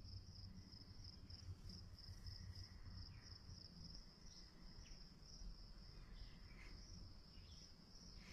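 Faint crickets chirping, a steady high-pitched pulse about three times a second.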